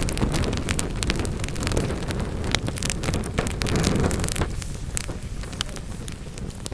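Wood fire in a fireplace crackling and popping, many sharp snaps over a low rumbling noise. The rumble eases off after about four and a half seconds, while the crackles continue.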